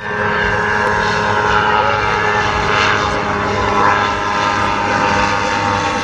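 Propeller aircraft engine running, a steady drone that holds its pitch and loudness throughout.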